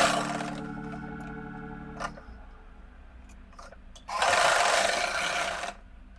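Sewing machine stitching through cotton and lace trim in two short runs: one at the start fading out over about two seconds, and another about four seconds in lasting about a second and a half. It is topstitching over freshly attached lace to make it secure.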